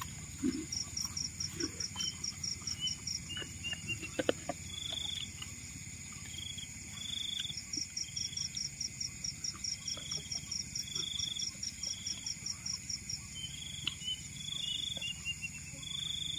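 Chorus of night insects: a steady high-pitched whine, a long run of pulsing chirps about four or five a second that stops and starts again, and short buzzing calls repeated every second or so lower down. A few faint knocks of plates and bowls being handled come through, the loudest at about four seconds in.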